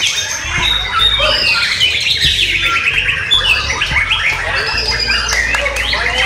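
White-rumped shamas singing over one another, a dense chorus of rapid whistled phrases and chatter with no pause, above a steady low hum.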